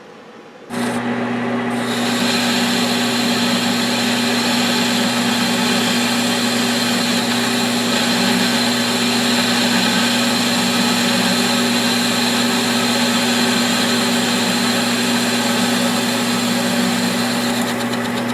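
Metal lathe starting up about a second in and running steadily with a constant motor hum, as the tool cuts a little more steel from the spindle of a 2010 Ford Explorer sealed front wheel hub.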